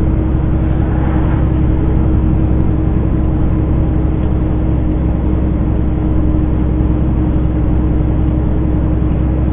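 Semi truck's diesel engine pulling hard under a heavy load at low speed, a loud steady drone with a constant whine, heard from inside the cab. The truck is labouring to hold about 20 miles an hour on a snowy grade.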